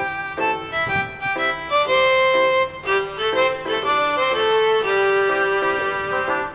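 Instrumental background music: a melody of pitched notes changing quickly, with longer held notes in the second half, over a steady low drone.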